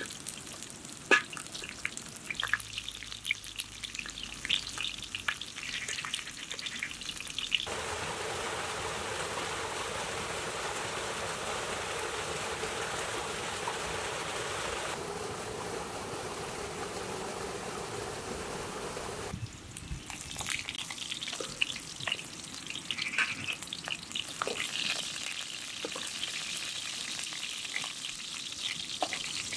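Rounds of squash frying in oil in a wide metal pan over a wood fire: sizzling with frequent sharp pops. For about twelve seconds in the middle this gives way to the steady rush of a small waterfall, then the sizzling and popping return.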